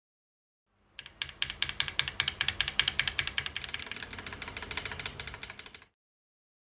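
Fast typing on a mechanical keyboard fitted with Akko Jelly Black linear switches: a rapid run of keystroke clacks, several a second. It starts about a second in and stops abruptly about a second before the end.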